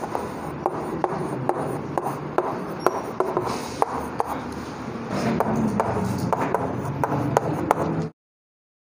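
Chalk writing on a blackboard: continuous scratching strokes punctuated by frequent sharp taps of the chalk on the board, about two or three a second, cutting off suddenly near the end.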